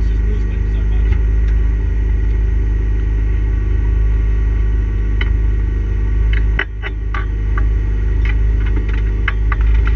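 Mitsubishi Lancer Evo IV's turbocharged four-cylinder engine running steadily at low revs, with a heavy low rumble, heard from inside the roll-caged cabin. Scattered sharp clicks and knocks come in from about halfway through.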